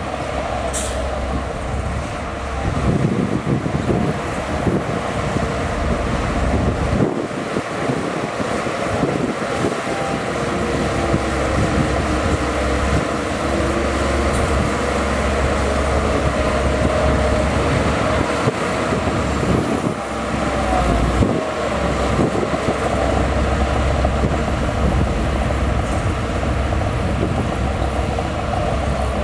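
Bulldozer's diesel engine working continuously as it pushes dirt, the load swelling and easing, with irregular clanks and knocks.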